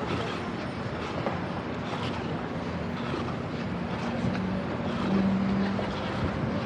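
City street noise heard while running, with a vehicle's engine humming at a steady low pitch, loudest a little past the middle.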